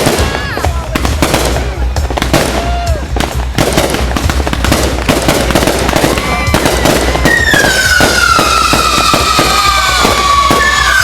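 Fireworks display: a dense, rapid crackle of bangs and pops with short whistles. About seven seconds in, a loud whistling firework starts, its tone falling slowly with overtones.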